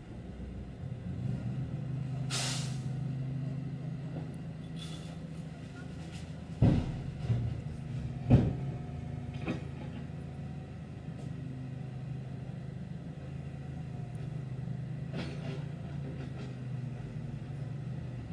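Diesel engines of a Cat backhoe loader and a dump truck running steadily. A sharp air-brake hiss comes about two seconds in. Two loud bangs come about seven and eight seconds in as broken asphalt is loaded into the dump truck's box.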